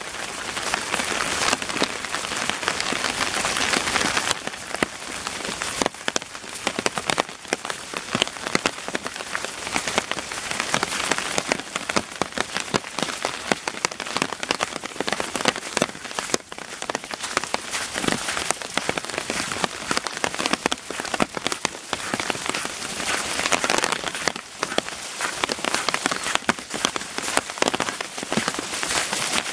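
Rain falling steadily, a continuous hiss with many close drops ticking over it. The hiss swells for the first few seconds and again near the end.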